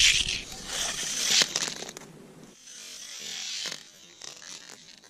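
A die-cast Hot Wheels car rolling fast down a long plastic Hot Wheels track with a rushing rattle, then a few sharp knocks near the end as it strikes a raw chicken egg at the bottom of the track, which does not break.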